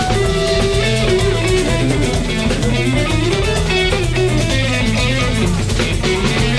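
A live band playing, with guitar over bass guitar and drum kit.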